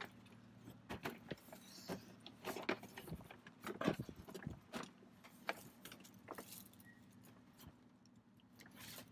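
A large cardboard toy box being wrestled into a car, knocking and scraping against the seats in a string of irregular clicks and rattles, loudest about four seconds in, over a faint steady low hum.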